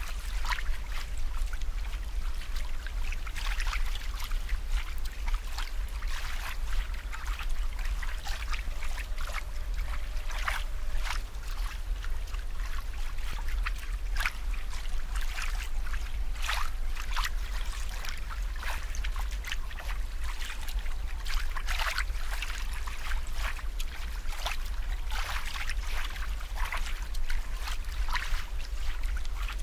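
Water trickling and bubbling, with many irregular splashy spurts over a steady low hum.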